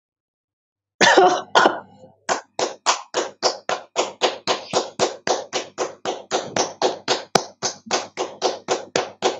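One person clapping their hands steadily, about three claps a second, beginning about two seconds in after two louder, longer bursts about a second in.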